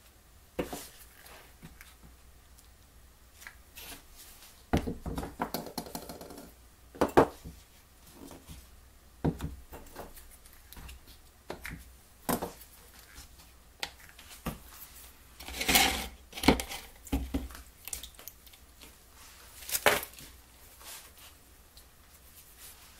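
Metal spring clamps being opened and snapped onto the edge of glued plywood organ parts on a workbench, with scattered knocks and clicks as the clamps and wood are handled. There is a longer scrape about five seconds in, and the loudest clatters come near the middle and about three-quarters of the way through.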